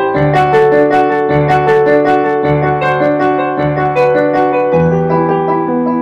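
Slow background piano music: a low bass note is struck about once a second under a sustained melody of chords.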